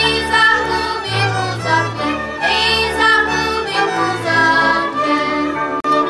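Moravian folk string band playing a lively tune, fiddles carrying the melody over a double bass. The sound drops out for an instant near the end.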